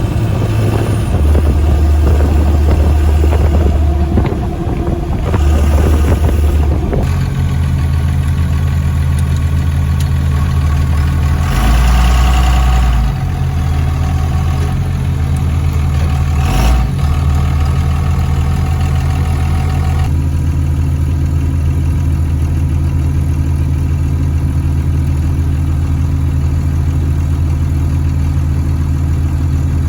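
5.9 Cummins diesel engine running as the truck is driven; the engine note shifts unevenly for the first several seconds, then settles into a steady drone, with a brief louder surge around twelve seconds in.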